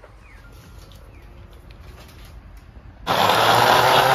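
Electric countertop blender switching on abruptly about three seconds in and running at full speed, chopping red fruit with water into juice: a loud, steady motor whine whose pitch creeps up slightly as it spins up.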